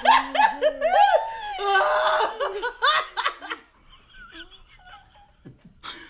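A woman laughing uncontrollably in high, rhythmic peals, trailing off into quieter giggles about four seconds in.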